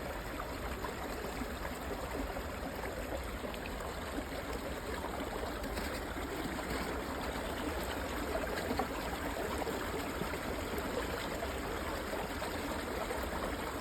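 Meltwater from snow running steadily in a small stream, trickling and gurgling.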